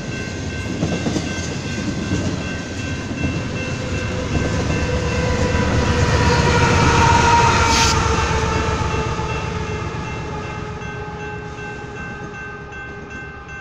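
Union Pacific double-stack freight train passing, its wheels clattering on the rails. The rear diesel locomotive goes by about six seconds in: the sound is loudest there, then drops slightly in pitch and fades as the train pulls away. Steady tones, likely the level-crossing bell, run throughout.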